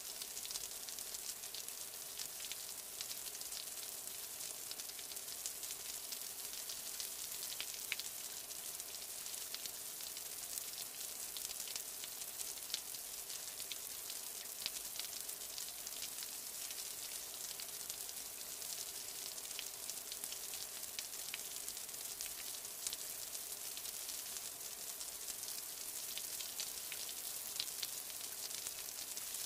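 Steady rain: an even hiss of falling drops with many small, sharp drop ticks scattered through it.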